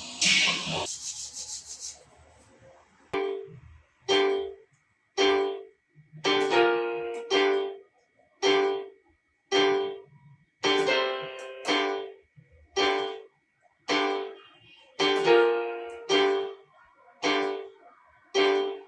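Background music: a slow melody of separate piano-like keyboard notes, about one a second, each struck and fading away.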